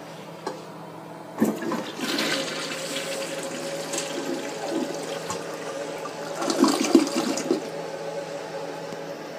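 A 2002 Mansfield Alto toilet flushing. About a second and a half in, a sudden rush of water swirls down the bowl, with a louder surge around seven seconds, then water runs on more steadily.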